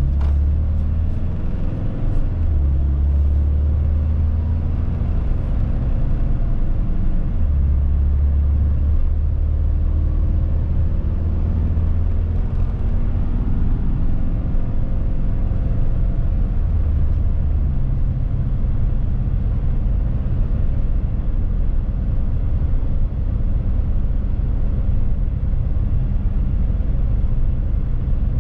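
Mercedes-Benz Sprinter van on the move, heard from the cab: a steady, loud low engine and road rumble. In the first half the engine note glides up and down as the van speeds up and slows.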